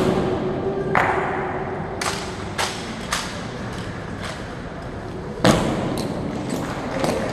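Honor guard drill: a series of sharp knocks and thuds from rifles and boots striking the floor, irregularly spaced about a second apart, the heaviest thud about five and a half seconds in.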